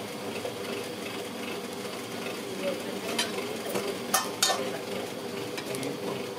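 Vadas deep-frying in a pan of hot oil, a steady sizzle, with a few sharp metal clinks from a ladle or slotted spoon a little past halfway.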